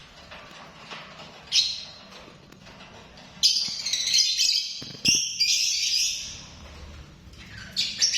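Lovebird calling with shrill, high-pitched chattering calls: a short burst about a second and a half in, a longer run of loud calls from about three and a half to six seconds, and another burst near the end. A single knock sounds about five seconds in.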